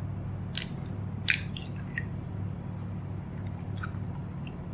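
An egg being cracked and its shell pulled apart by hand over a glass bowl: a few sharp crackles, the loudest about a second in, then lighter cracks as the egg drops in near the end. A steady low hum runs underneath.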